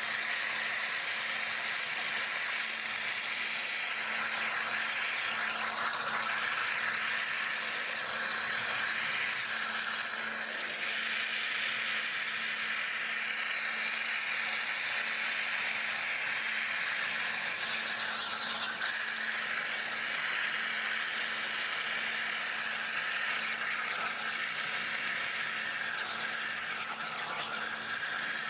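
CNC water jet cutter's high-pressure jet cutting through metal sheet: a steady, even hiss with a faint steady hum underneath.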